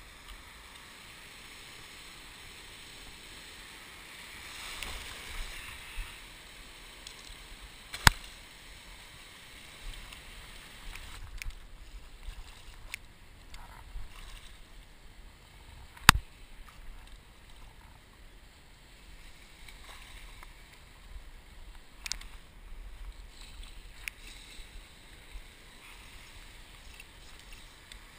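Shallow sea water lapping and sloshing around a wading angler, with scattered small knocks and two sharp, loud clicks about eight seconds apart, the first about a third of the way in.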